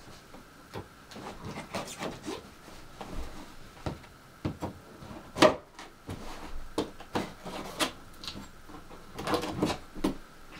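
Packaging and parts being handled during an unboxing: scattered knocks, scrapes and rustles, with one sharp knock about five and a half seconds in.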